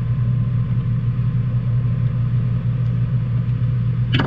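Loud, steady low mechanical hum of a running machine, with a brief sharp sound near the end.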